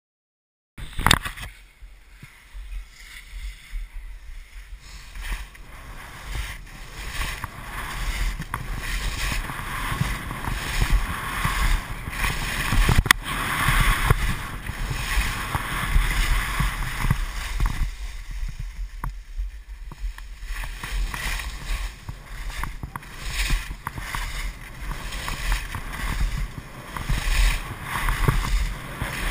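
Skis sliding and scraping over packed snow at speed, with wind buffeting the microphone as a low, uneven rumble. The sound cuts in with a sharp click about a second in, after a moment of silence.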